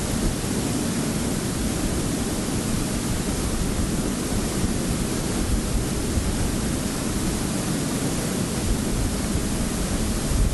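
A steady, loud rushing hiss with no speech.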